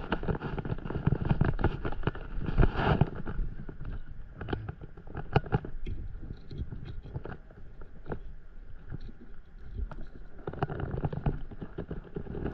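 Small water slaps and wash against a stand-up paddleboard with a low wind rumble on the microphone, and scattered sharp clicks and knocks from a fishing rod and reel being handled.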